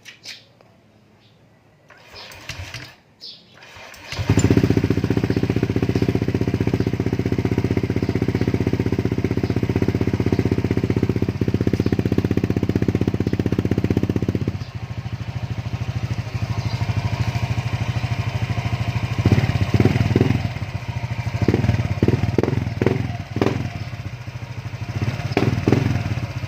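Motorcycle with a gutted, open aftermarket Motospeed exhaust pipe, started about four seconds in and then idling steadily and loudly. Near the end it is blipped several times in quick succession.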